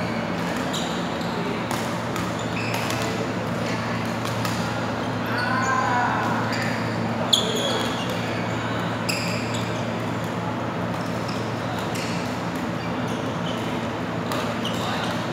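Badminton rallies in a large hall: sharp racket strikes on the shuttlecock and short squeaks of court shoes on the floor, with players' voices, over a steady low hum. One crisp strike about seven seconds in is the loudest sound.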